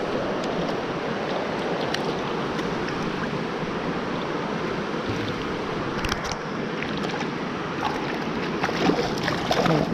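Steady rushing of fast-flowing creek water, with a few brief sharp sounds after about six seconds.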